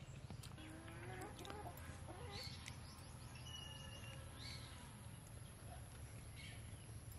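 Faint bird calls: a few low, wavering calls in the first two seconds, then a short high note near the middle.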